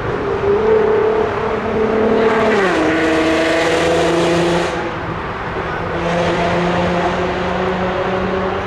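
A motor vehicle drives past close by: its engine note is steady, then drops in pitch as it passes about two and a half seconds in, with tyre hiss at its loudest around the pass. A lower steady engine hum goes on after it.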